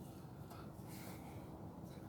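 Quiet: faint low background hum and room tone, with no distinct event.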